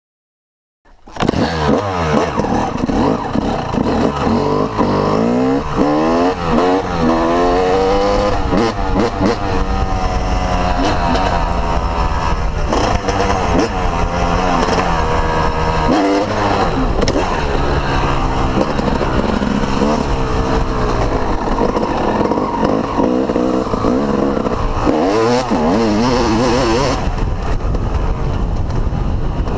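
Yamaha YZ250 two-stroke motocross engine heard from the bike itself, cutting in suddenly about a second in, then revving up and down repeatedly as the rider accelerates and shifts along a dirt track.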